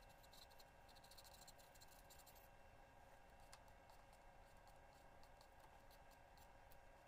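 Faint graphite pencil strokes scratching on drawing paper: a dense run of short scratches for the first two seconds or so, then scattered light ticks, over a faint steady hum.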